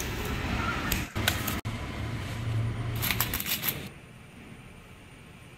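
Sharp clicks and light metallic rattles from bicycle parts being handled during assembly, in a quick cluster about three seconds in, over a steady low hum that drops to a quieter background near the end.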